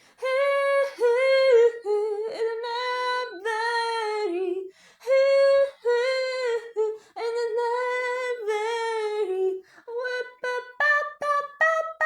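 A solo female voice singing an improvised melody a cappella, high and ringing, mostly in long held notes with short breaks. Near the end the notes turn short and choppy and step upward in pitch.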